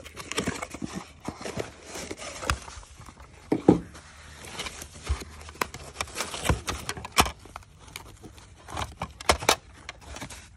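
Handling noise from a taped cardboard shipping box and a stack of hard plastic graded-card slabs: rustling and scraping with a string of small clicks, and a few sharper knocks about two and a half, three and a half and seven seconds in.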